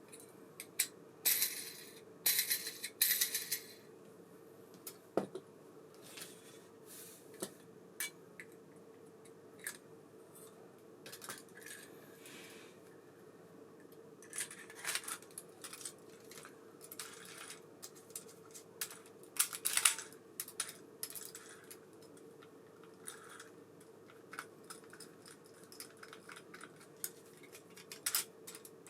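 Small metal parts and tools clicking, clinking and scraping in irregular bursts while an Abu Garcia Ambassadeur 5500C baitcasting reel is being worked on, with a faint steady hum underneath.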